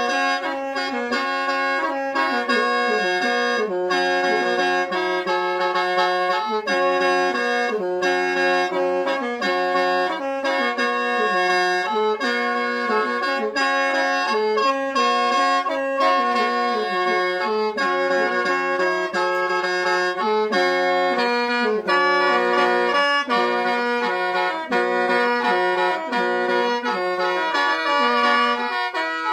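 Khaen, the Lao bamboo free-reed mouth organ, played solo: a quick, pulsing melody over steady drone notes that sound without a break.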